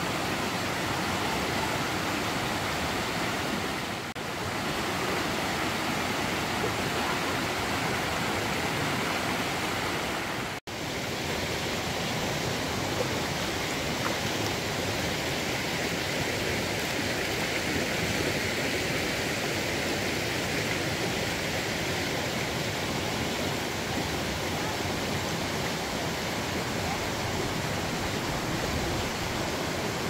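River water rushing, a steady even noise that cuts out for an instant about ten seconds in.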